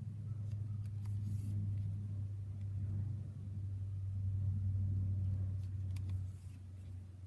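A steady low hum, with a few faint ticks and two brief soft hisses.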